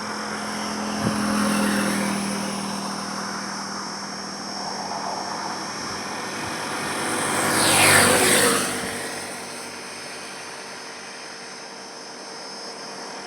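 Highway traffic running steadily. One vehicle passes close and loud about eight seconds in, its sound swelling and then fading away.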